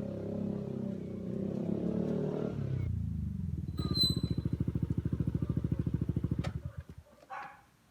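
Yamaha Aerox scooter's single-cylinder engine running through an aftermarket Akrapovic-copy exhaust, blipped lightly at first, then settling to an even idle and shutting off near the end. A short high beep sounds about four seconds in.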